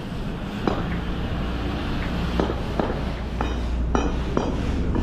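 Footsteps on hard pavement at a walking pace, each step a sharp click, over a steady low street rumble.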